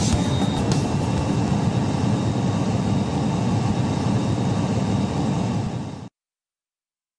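Steady jet aircraft noise in flight, a constant rush of engine and airflow heard from aboard an aircraft. It cuts off suddenly about six seconds in.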